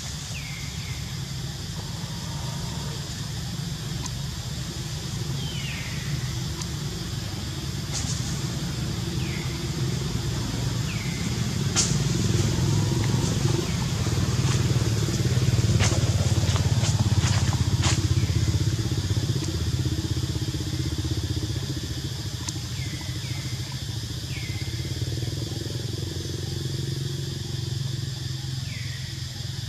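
A motor vehicle engine's low drone that swells, loudest a little past halfway, then eases off again. Short high falling chirps repeat over it every few seconds.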